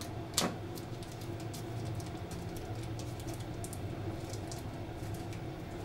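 Small plastic bag being handled and opened by hand: scattered light crinkles and ticks, with one sharper crackle about half a second in, over a steady low hum.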